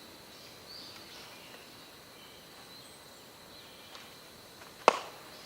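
Faint outdoor ambience, then one sharp crack near the end: a baseball hitting a bat or slapping into a glove.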